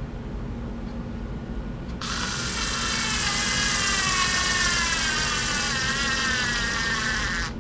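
Cordless screwdriver motor and gearbox whining as it drives a wood screw, starting about 2 seconds in and cutting off sharply about 5 seconds later. Its pitch slowly falls as the motor labours on weak, nearly drained rechargeable batteries.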